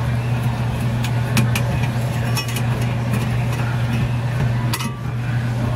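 A steady low machine hum, with scattered sharp metallic clicks and taps from a hand tool and the sheet-metal bracket of a refrigeration evaporator coil being handled.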